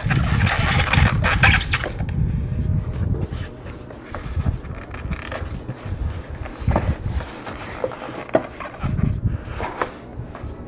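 Packaging rustling and scraping as a plastic-wrapped dial thermometer with a metal probe is pulled out past a styrofoam insert in a cardboard box. It is loudest in the first two seconds, then thins to scattered small knocks and rustles.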